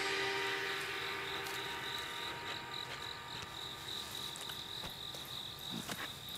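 Crickets chirping in a steady night chorus, a continuous high trill.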